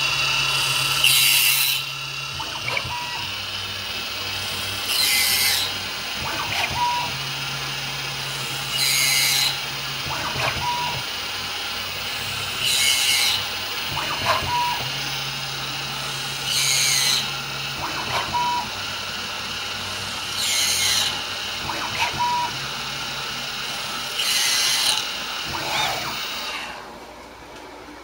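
CNC milling machine cutting a plastic retainer cap with an end mill: a steady spindle whine, with a burst of cutting noise about every four seconds as the cutter makes repeated passes, seven in all. Between the bursts a lower hum from the axis motors changes pitch. Near the end the spindle stops and the whine drops away.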